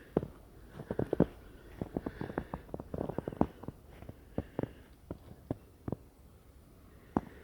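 Footsteps crunching in fresh snow: clusters of sharp crackles, dense for the first few seconds, then sparser and more widely spaced.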